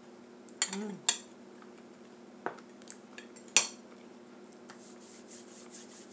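A fork and plate clinking: about five sharp, short clicks, the loudest about three and a half seconds in, followed by faint soft rustling.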